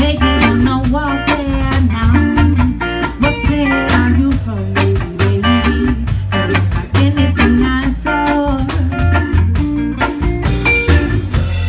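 Live band playing a song: electric guitars, electric bass and a drum kit with keyboards, the drums striking steadily over a sustained bass line.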